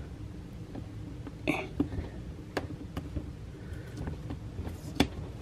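Faint scattered clicks and scratches of fingers picking at and peeling thin adhesive vinyl off a hockey skate boot, with one brief scratchy rip about a second and a half in.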